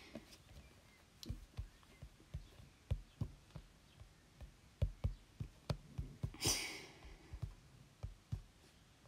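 Fingertips tapping the glass of an iPad touchscreen while typing on the on-screen keyboard: irregular dull taps, one to three a second. A short breathy hiss comes about six and a half seconds in.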